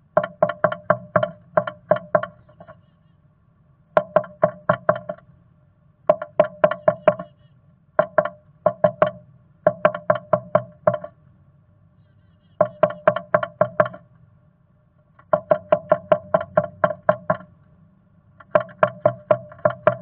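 Black-capped chickadee pecking at the wood of its nest box: rapid hollow taps, about five or six a second, in about eight short bouts with brief pauses between.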